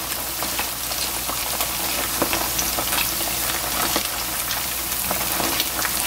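Battered chicken gizzards deep-frying in a wok of hot oil during the second fry that crisps the coating: a steady sizzling hiss full of fine crackles and pops.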